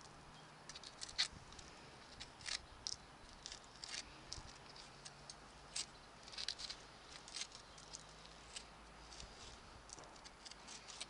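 A hoof pick scraping and picking packed mud and pebbles out of a shod mule's hoof: quiet, irregular scrapes and clicks, several a second.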